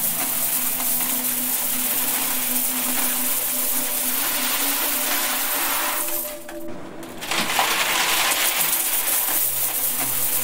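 Stream of coins pouring into a metal box heaped with coins: a dense, continuous metallic jingle and clatter that eases off briefly about six and a half seconds in, then picks up again.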